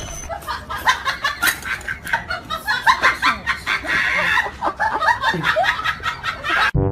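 Domestic cat making a rapid, irregular run of short clucking chirps and squeaks, open-mouthed, with a few sharp clicks; it cuts off abruptly near the end.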